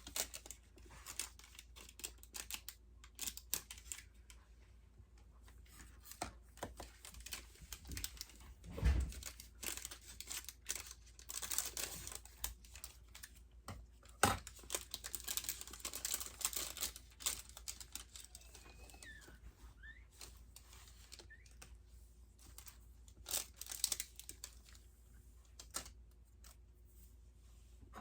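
Irregular rustling and crinkling of paper or pad bedding being shifted about, broken by scattered clicks and a louder knock about nine seconds in.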